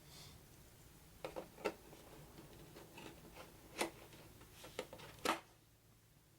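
Light clicks and taps of hard plastic miniatures being handled and set down on a tabletop, several in quick succession, the last two the loudest.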